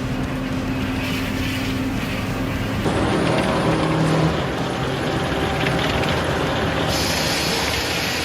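Heavy truck engine running steadily. The sound changes abruptly about three seconds in and again about seven seconds in.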